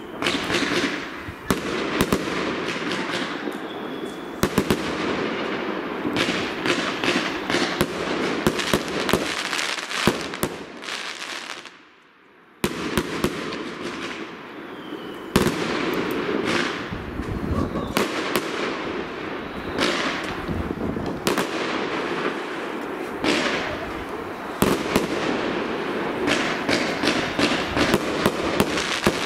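Aerial fireworks display: rapid bangs and dense crackling of shells bursting overhead, with a short lull about twelve seconds in before the barrage starts again suddenly.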